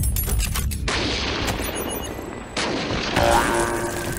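A rapid run of sharp bangs through the first second, then a few single bangs, with a louder burst about three seconds in.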